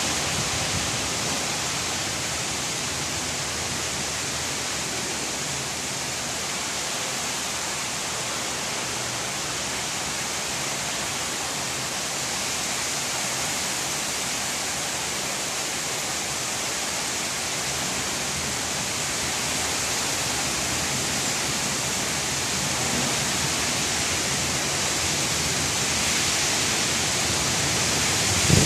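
Heavy monsoon downpour: rain falling steadily as a dense, even hiss, growing slightly louder toward the end.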